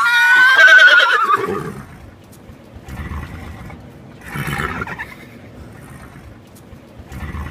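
Thoroughbred horse whinnying loudly, one long call whose pitch wavers and falls over about two seconds. Two shorter, quieter sounds follow, about three and four and a half seconds in.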